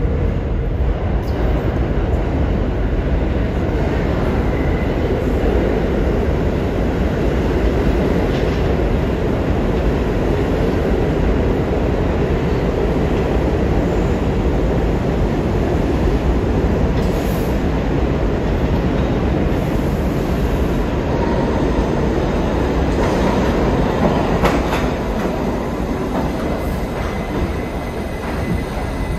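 New York City subway train running on the track: a loud, steady rumble of wheels on the rails, with faint high tones in the later part.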